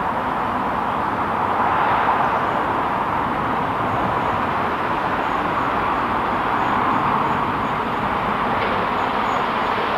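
Steady rushing noise of a train, with no clear beat.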